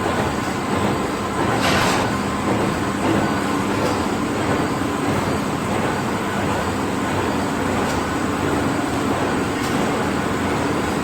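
PP plastic bag cold-cut, heat-seal machine running: a steady mechanical din with a constant hum and a few sharp clacks, the loudest about two seconds in.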